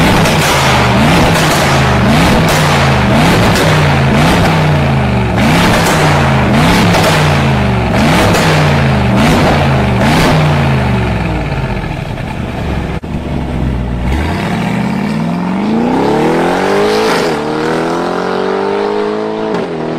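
Mercedes-AMG G63's twin-turbo V8 through a catless valvetronic exhaust, blipped repeatedly about once a second, with sharp crackles at the top of each rev. About thirteen seconds in it switches to hard acceleration, the engine pitch rising steadily with two brief dips at upshifts.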